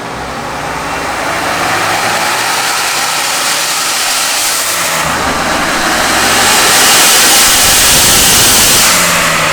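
Ford Bronco engine under full throttle on a chassis dyno with its valved catback exhaust closed, the engine and roller noise building steadily for about seven seconds and then easing slightly near the end.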